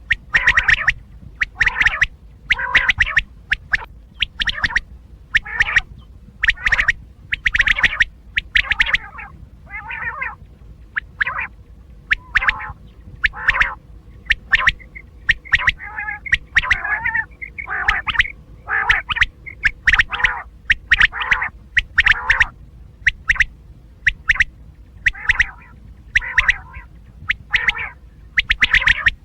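Quail calling over and over in short, sharp notes, about one or two calls a second, over a faint low hum.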